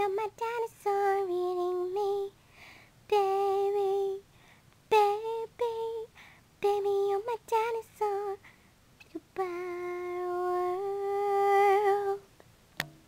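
A girl singing unaccompanied, a string of sung phrases with short gaps between them, ending on a long held note of about three seconds. A short click follows near the end.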